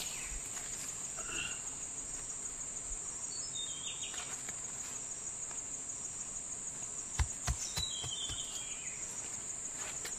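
Steady high-pitched insect chorus, with a bird giving short falling chirps twice, about three and a half and eight seconds in. A few low thumps come about seven seconds in.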